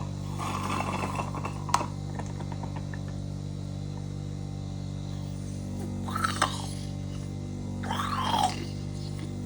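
Steady low electrical hum, with a stretch of handling noise ending in a sharp click about two seconds in, and a few short sounds falling in pitch in the second half.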